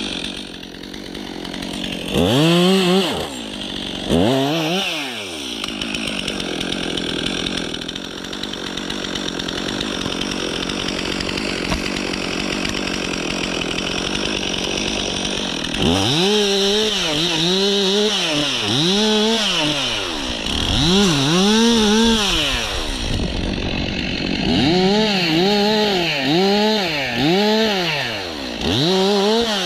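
Stihl MS 362 C two-stroke chainsaw running. It is blipped up and down twice near the start and runs at a steadier low speed for several seconds, then it is revved hard in a long run of throttle bursts, the pitch rising and falling about once a second.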